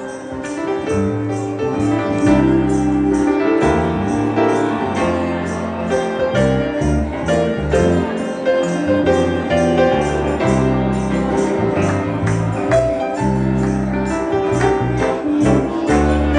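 Music with a steady beat: sustained bass and mid-range notes under a jingling percussion stroke about two to three times a second.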